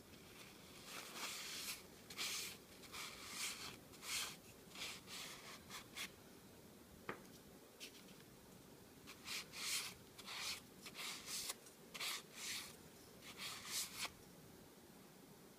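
Paper towel rubbing oil into wooden spoons: a run of short, irregular scratchy strokes, a lull in the middle broken by a single click, then more strokes.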